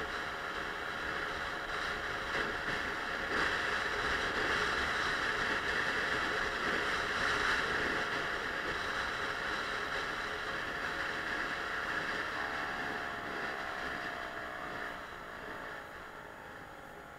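Suzuki Let's 4 scooter's small four-stroke engine under a steady rush of wind and road noise while riding. From about twelve seconds in the engine note falls and the sound fades as the scooter slows.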